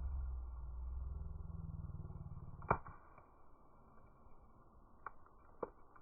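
Wood fire burning in a fire stand, heard slowed down and deepened: a low rumble in the first half, then one sharp crackle pop a little before halfway, and two smaller pops near the end.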